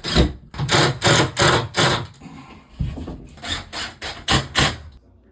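Hand tool working green board drywall: a run of short rasping strokes, about two to three a second, with a brief break partway and a stop near the end.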